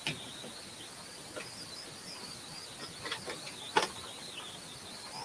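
Plastic action figure and its parts being handled: a few faint clicks and taps, the sharpest about four seconds in, over a faint, high, wavering tone in the background.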